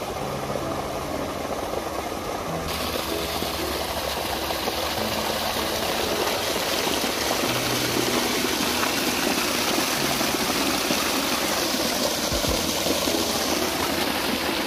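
Water gushing from an outlet into a small concrete irrigation tank, a steady rushing that grows brighter about three seconds in.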